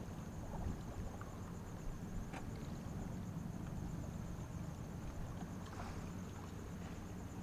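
Harbour ambience: a low steady rumble with a constant high insect trill over it and a few faint clicks.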